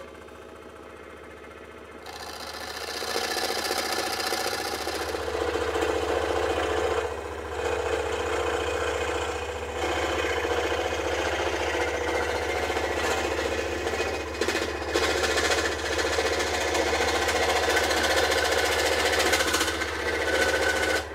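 Maximum-brand benchtop scroll saw running and cutting a thin strip of wood: a steady motor hum under the rapid chatter of the reciprocating blade. It gets louder about two seconds in, with a few short dips in the cutting sound.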